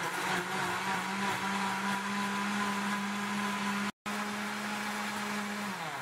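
Countertop blender motor running steadily, blending a liquid cake batter of eggs, margarine and coconut milk. It cuts out for an instant about four seconds in. Near the end it is switched off and its pitch falls as the motor winds down.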